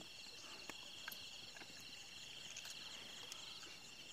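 A faint chorus of night insects, crickets trilling steadily in several high, finely pulsing bands, with a few soft clicks from handling in the boat.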